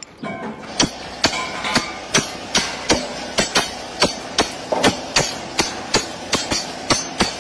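Several sledgehammers striking the head of a steel stake in turn, metal on metal. From about a second in, the blows come in a quick, steady rhythm of roughly two to three strikes a second.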